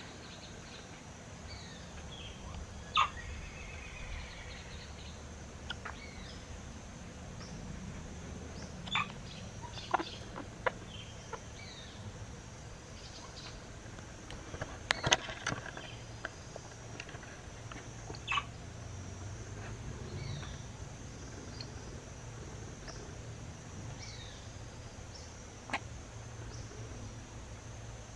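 Baby woolly monkey hiccuping: short, sharp hics that come at irregular intervals, a few seconds apart, with a quick cluster about halfway through. A steady high hiss runs behind them.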